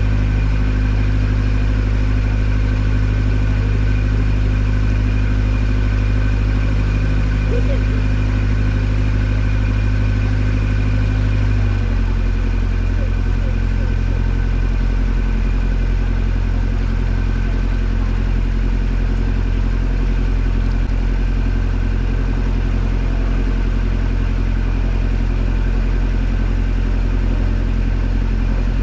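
Boat taxi's engine running steadily, heard from on board; about twelve seconds in the engine note shifts abruptly to a slightly lower, steady pitch, as with a change of throttle.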